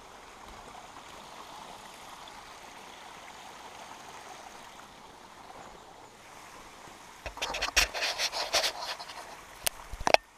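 Faint steady trickling of a small stream, then, about seven seconds in, loud crunching footsteps on gravel, with a couple of sharp knocks near the end.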